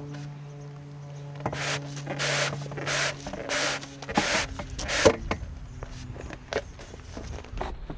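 Replacement awning fabric's edge cord being pulled through the RV awning track in strokes: a series of short rubbing swishes with a few sharp clicks.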